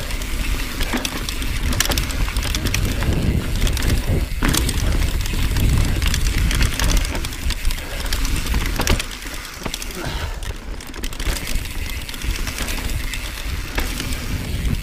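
Mountain bike riding fast down a dirt singletrack: wind rumbling on the camera microphone and tyres rolling over dirt, with sharp clicks and rattles from the bike over bumps.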